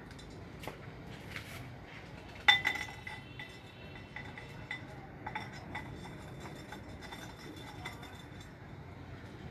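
Hard objects clinking and knocking in and against a clay flowerpot as it is worked by hand, with scattered light clicks and one sharp knock about two and a half seconds in that rings briefly.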